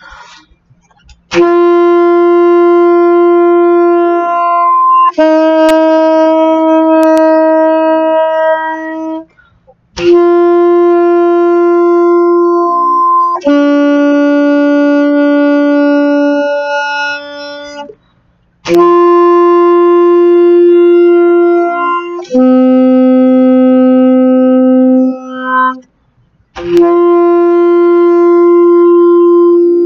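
Alto saxophone playing long tones: notes held for a few seconds each, in phrases that start on the same note and step down, with clean tongued changes between notes and short breath pauses between phrases.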